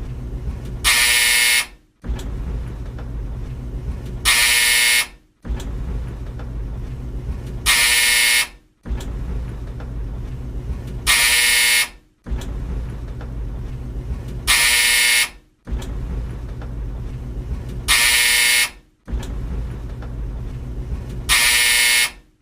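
An old tumble dryer's low, steady drum rumble, broken about every three and a half seconds by a loud buzz from its buzzer lasting just under a second. The pattern repeats seven times, each buzz followed by a brief cut to silence before the rumble resumes.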